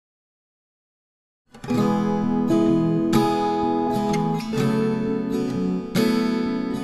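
Silence for about a second and a half, then background music begins: strummed acoustic guitar chords.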